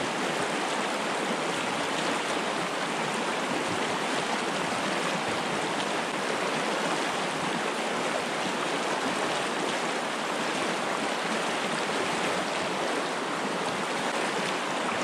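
Fast, shallow river rushing over a stony riffle, a steady hiss of moving water close to the microphone.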